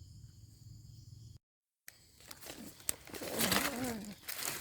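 Rustling and crackling in dry leaves and undergrowth, with a few clicks and a faint low voice, loudest in the last second and a half. It is preceded by a low steady hum and a half-second dead-silent gap from an edit cut.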